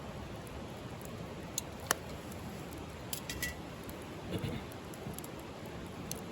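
Wood fire burning: a steady hiss with a few sharp crackling pops, the loudest about two seconds in.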